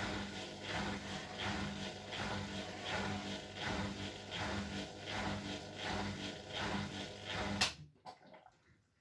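Bosch Maxx WFL 248Y washing machine running, a steady hum with an even pulse about twice a second, which stops abruptly with a sharp click near the end, leaving a few faint knocks.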